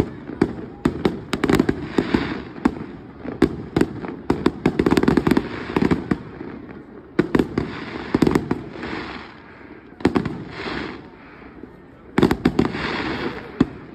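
Fireworks display: aerial shells bursting in a rapid, irregular series of sharp bangs, with stretches of crackling from the bursting stars in between.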